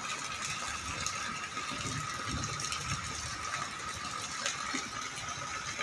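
Heavy rain falling steadily, a dense crackling patter of drops on wet paving and standing water.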